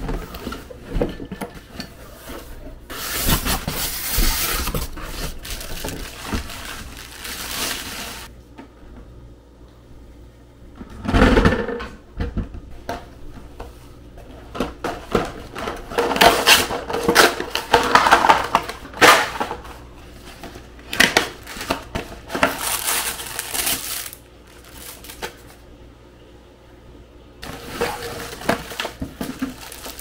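Plastic wrapping crinkling and cardboard packaging rustling and knocking as parts are unpacked by hand, in irregular bursts with short pauses between them.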